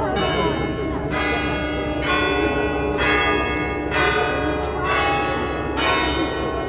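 Swinging church bells ringing in the bell tower, a stroke about once a second, each ringing on into the next.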